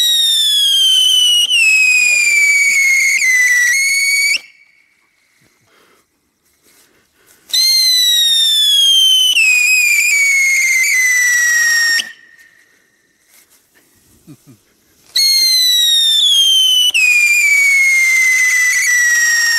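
Weco Höllenfeuerrad firework wheel spinning and whistling: three long whistles, each about five seconds, sliding steadily down in pitch and cutting off abruptly, with short near-quiet gaps between them.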